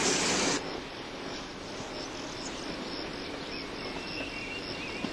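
Rushing noise of a passing electric railcar cuts off abruptly about half a second in. Then come crickets chirping, an even high chirp a few times a second, over faint background noise.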